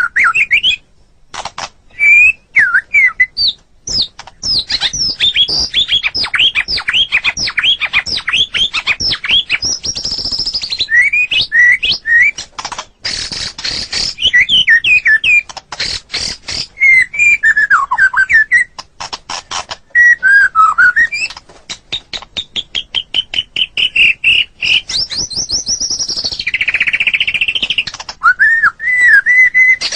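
White-rumped shama (murai batu) singing a long, varied song: fast runs of sharp rising notes, stretches of rapid rattling clicks, and lower slurred whistles.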